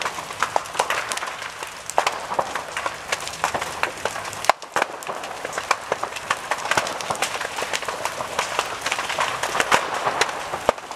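Building fire crackling and popping: a dense, irregular stream of sharp cracks over a steady rushing noise, with a short break about four and a half seconds in.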